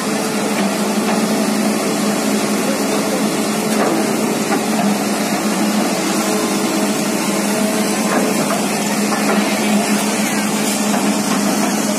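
A motor running steadily, a constant low hum under a loud rushing hiss.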